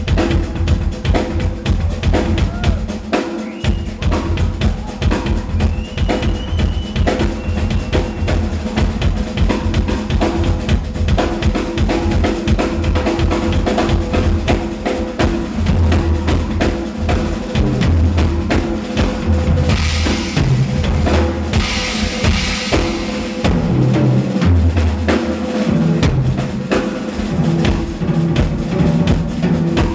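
Rock drum kit played fast and dense, with bass drum, snare and rimshots, over low bass notes. There are cymbal crashes about two-thirds of the way through.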